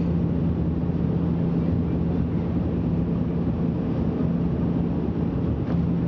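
Cabin noise of a Bombardier Dash 8 Q400 on approach: the steady drone of its turboprop engines and propellers over a rush of airflow. The low hum fades somewhat in the middle and comes back stronger near the end.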